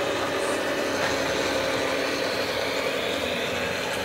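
Radio-controlled scale model truck driving past, a steady mechanical hum and whine from its drive train.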